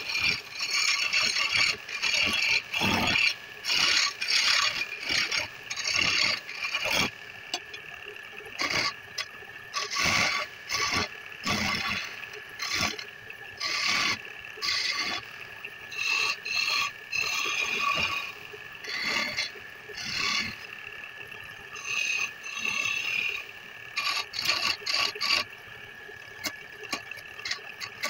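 Wood lathe spinning a wooden spindle with a steady whine, while a hand-held turning tool cuts into the wood in repeated short scraping bursts, about one a second, with longer pauses between cuts near the end.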